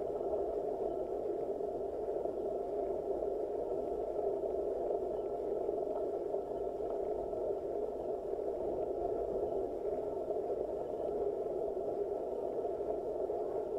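Steady, muffled ride noise of a road bicycle climbing slowly, picked up by a handlebar-mounted action camera: an even hiss of tyre and air noise with a faint high steady tone above it.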